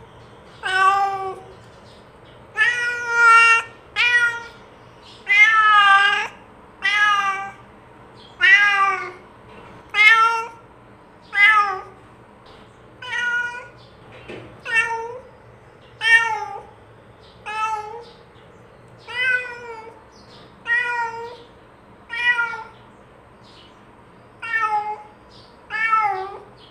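Domestic cat meowing over and over, about one meow every one to two seconds, each meow rising and then falling in pitch: a cat calling out to other cats.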